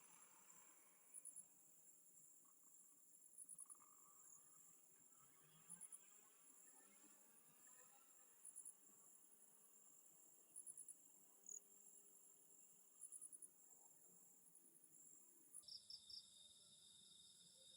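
Faint insects, most likely crickets, chirping: short bursts of rapid pulses about every two seconds over a steady high-pitched trill. Near the end a lower-pitched trill comes in suddenly.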